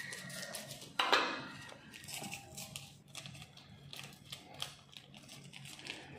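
Close handling noise: a louder scrape about a second in, then scattered small clicks and taps, over a low steady hum.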